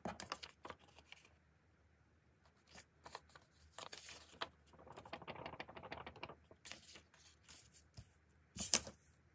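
Paper cutouts and paper packets handled on a tabletop: scattered soft rustles, slides and light taps, with a louder short burst near the end.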